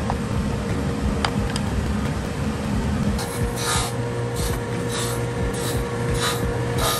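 Steady machine hum with a couple of light wooden clicks. About three seconds in, a conveyor drum sander starts sanding an end-grain checkerboard board, a rasping noise that swells and fades roughly twice a second.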